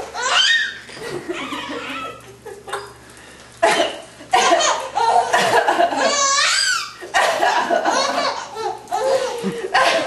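A woman and a baby laughing in repeated bursts, with a short lull about three seconds in and a high wavering squeal about six seconds in.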